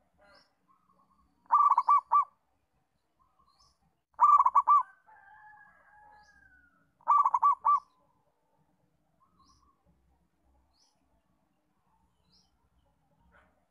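Zebra dove (perkutut) cooing: three short bursts of rapid staccato coos about three seconds apart, with faint high chirps of small birds between.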